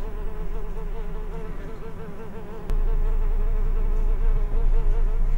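A fly buzzing: a drone with a wavering pitch that stops near the end. About halfway through, a click is followed by a low rumble.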